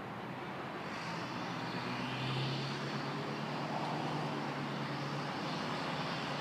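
Steady low engine hum that fades in about a second in and swells a little later, over background hiss of street noise.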